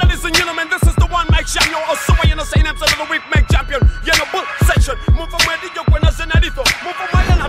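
A man rapping into a studio microphone over a hip-hop beat with a hard, regular kick drum.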